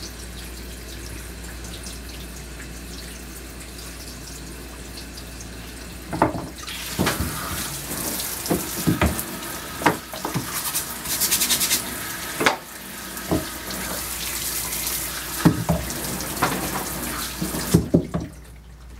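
Water running in a grooming tub, a steady low rush at first, then louder splashing with scattered knocks and clatter from about six seconds in until shortly before the end.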